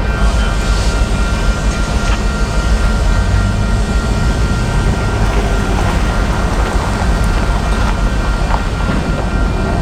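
Freight train rolling past steadily in the rain: a continuous heavy rumble with rain noise over it.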